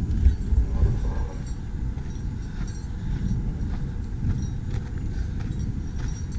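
Hiker's footsteps crunching on a rocky trail, with a bear bell jingling faintly over them, under a steady rumble of wind on the camera microphone.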